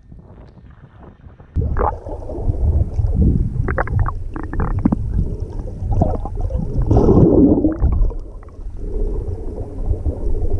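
Muffled underwater rumbling and gurgling of moving water and bubbles, heard by a camera held under the surface while a swimmer moves through the water. It starts suddenly about one and a half seconds in, with scattered sharp clicks and knocks, and swells loudest about seven seconds in.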